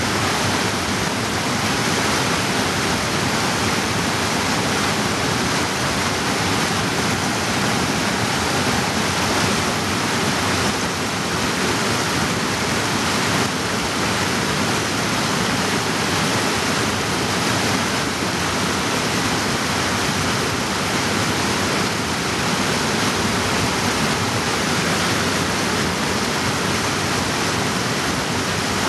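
Fast mountain creek rushing and splashing over boulders in white-water cascades, a steady, loud, even roar of water.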